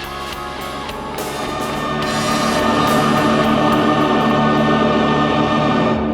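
Score music with a steady beat that swells into a loud sustained chord about two seconds in, then cuts off abruptly near the end.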